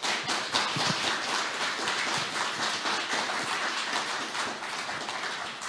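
Audience applauding: many hands clapping at once, starting suddenly and tapering slightly toward the end.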